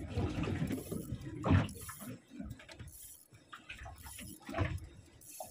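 Water sloshing and lapping against a small boat in a few irregular surges.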